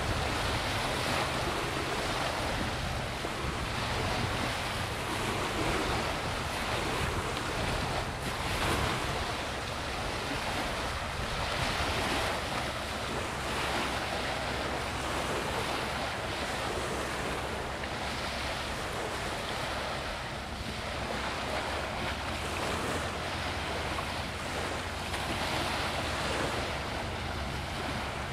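Small waves washing against a rocky shore, rising and falling every few seconds, with wind buffeting the microphone and a low steady drone underneath.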